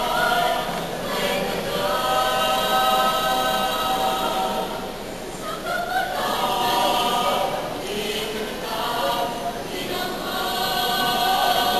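Teenage mixed choir singing in harmony, with long held notes in phrases that dip briefly between lines.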